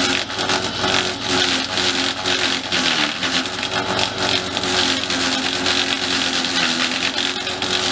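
Tractor engine running steadily while a tractor-mounted debarker strips bark off a Sydney blue gum log, a dense scraping, shredding noise over the engine. The engine note dips briefly under the load about three seconds in.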